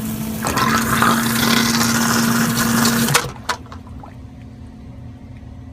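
Electric sump pump running in its crock: a steady motor hum with water rushing, which shuts off suddenly about three seconds in.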